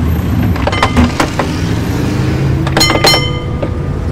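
A2 heritage tram running along its rails, a steady low rumble with a rising whine. A few sharp clicks come about a second in, and two ringing metallic strikes close together about three seconds in.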